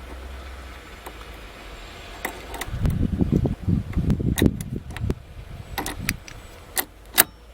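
Handling noise: about two seconds of rubbing and knocking, then several separate sharp clicks, two of them close together near the end.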